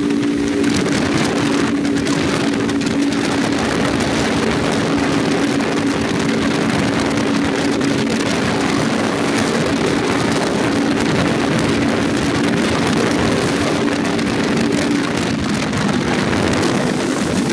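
Touring motorcycle engine running at a steady cruise, heard from the rider's seat, with wind rushing over the microphone.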